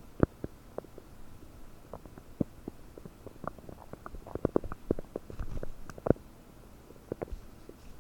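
Human stomach and intestines gurgling, picked up close by a desktop microphone: a quick run of small bubbly pops, thickest in the middle, with one louder pop about six seconds in. Gas and fluid moving through a bloated gut after eating 30 prunes.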